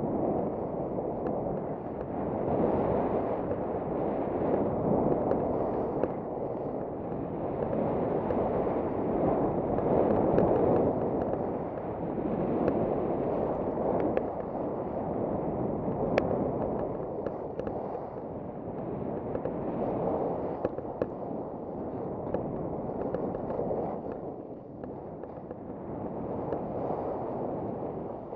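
Wind rushing over a helmet camera's microphone while skis scrape and skid across packed snow, the noise swelling and easing with each turn, with a few sharp clicks. The skier says his ski edges are dull and the skis slide badly, which fits the skidding scrape.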